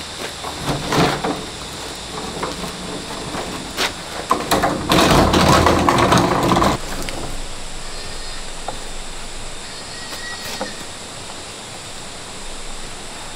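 Caster wheels of a heavy wooden table rolling and rattling over a rough concrete floor as it is pushed, with scattered knocks; the rolling is loudest for about two seconds in the middle, then dies down.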